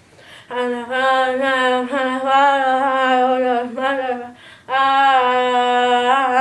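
A boy singing unaccompanied in long, held notes that waver slightly in pitch, in two long phrases with a short breath between them just before five seconds in.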